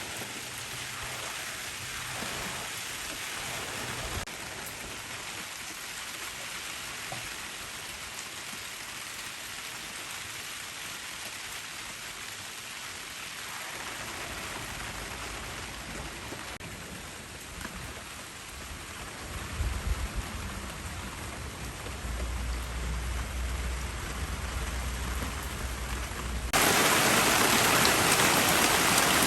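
Heavy rain falling steadily in an intense downpour, with a low rumble joining for a few seconds about two-thirds of the way through. Near the end the rain noise suddenly becomes much louder and brighter, like rushing, pouring water.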